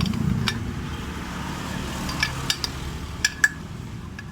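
Sharp metal clinks of a bearing puller and hand tools on the CVT pulley housing, several in a row with a short ring after each. A steady low hum runs underneath.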